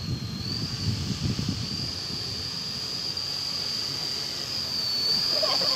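Radio-control scale model Beaver's engine running at low throttle as the plane rolls on grass after landing: a steady high whine that dips briefly at the start and rises near the end as the throttle opens. A low rumble runs under it for the first two seconds.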